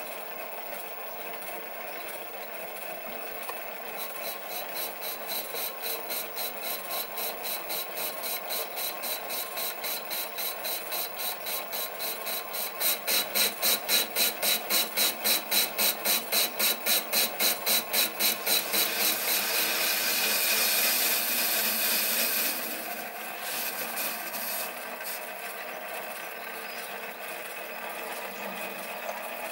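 Sieg SC3 mini lathe running at about 200 RPM while its tool turns down a cast iron bar: a steady motor hum with a scraping cut that pulses about three times a second, once per turn of the work. The pulsing is loudest in the middle, then turns into a steadier hiss for a few seconds before easing off.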